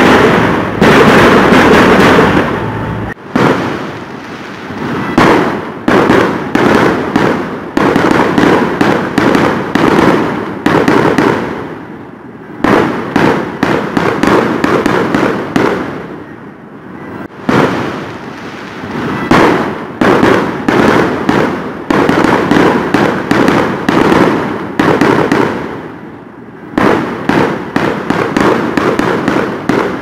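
Fireworks going off in dense volleys of rapid bangs and crackles, coming in waves with short lulls every few seconds.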